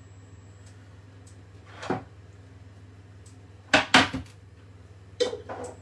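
Wooden chopping board being moved, with the metal knife and spoons on it knocking and clattering against it and the counter. There is one knock about two seconds in, two loud clatters close together about four seconds in, and a lighter rattle near the end, over a low steady hum.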